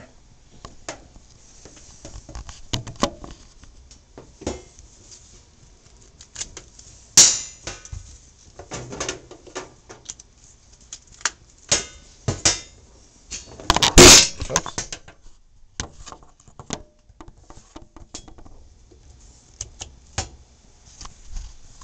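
Plugs and power cords being handled as an Appliance Buster 5 plug-in unit is connected between a washing machine and a load tester: scattered clicks and knocks, the loudest about 7 and 14 seconds in.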